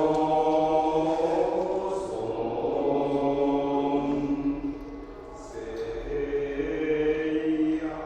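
Buddhist monks chanting in unison: long, held, low-pitched notes, with a brief lull about five seconds in before the chant resumes.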